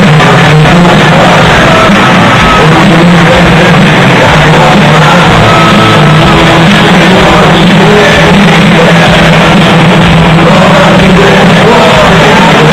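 Live rock music from a stadium concert's sound system, heard from within the crowd through a mobile phone's microphone, loud enough to overload it throughout.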